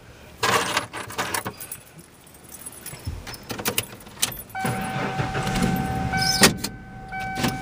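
Keys jangling and clicking in the cab of a 1996 Ford F-150. About halfway through, a steady electronic chime tone starts over a low rumble.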